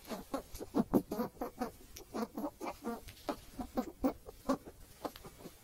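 Gray squirrel calling: a rapid run of short, chattering calls, about four or five a second, loudest about a second in.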